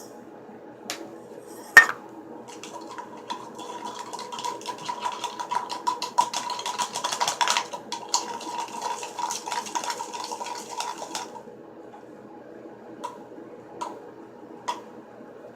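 A utensil stirring and scraping rapidly against a container, clinking as it mixes a thick dish-soap and salt slime mixture, with a faint ringing tone from the container. There is one sharp clink just before the stirring starts, and a few light taps after it stops about three-quarters of the way through.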